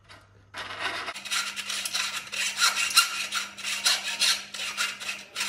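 Round file rasping back and forth inside the cut end of a low carbon steel pipe, taking off the internal burr. The scraping strokes start about a second in and come quickly, sped up at double speed, with a faint steady hum beneath them.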